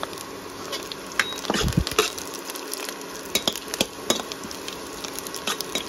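Sliced onions and green chillies sizzling in oil in a steel kadhai, with a steel ladle scraping and clicking against the pan as they are stirred. A dull low thump comes a little under two seconds in.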